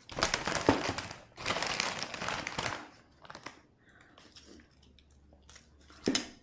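Crinkling and rustling of a plastic wrapper or bag handled up close, in two long bursts of over a second each. A few small clicks follow, then one short crinkle near the end.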